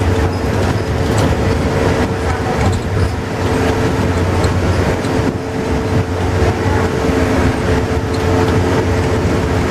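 Interior noise of a Volvo double-decker bus under way at road speed: a steady engine and driveline drone with road and tyre noise, and a steady humming tone over it, as heard inside the passenger cabin.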